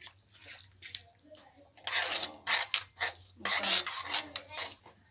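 Steel spoon scraping and stirring thick curry gravy in a metal kadai, in a series of rasping strokes from about two seconds in, with a few light clicks before them.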